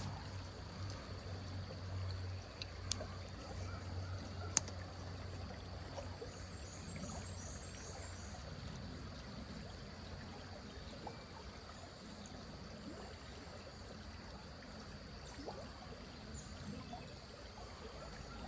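Small creek water trickling and running steadily, with two sharp clicks about three and four and a half seconds in.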